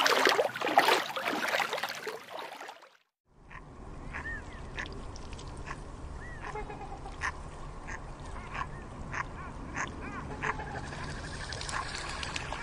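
Loud, surging water noise that cuts off abruptly about three seconds in. After a short silence, a steady low outdoor rumble carries soft, short, high peeping calls and a few clicks from mute swan cygnets.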